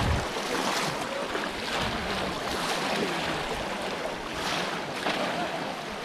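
Muddy pond water splashing and sloshing around legs as people wade through it, in repeated soft surges.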